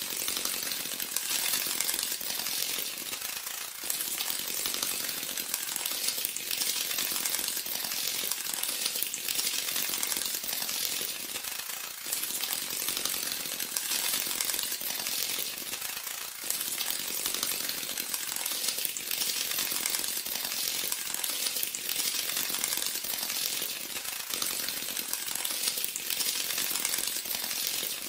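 Beetle sound: a dense, rapid crackling and clicking that keeps going without a break.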